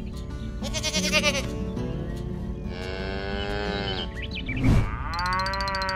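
Three bleating animal calls played as sound effects over background music: a wavering one about half a second in, a longer falling one around three seconds in, and a third near the end. Just before the last call comes a short loud noise, the loudest thing here.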